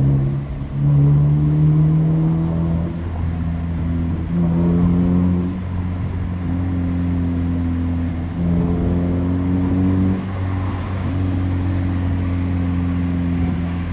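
Music from the car stereo playing over the steady low drone of a Nissan Sentra B17's engine and aftermarket exhaust, heard from inside the cabin while cruising.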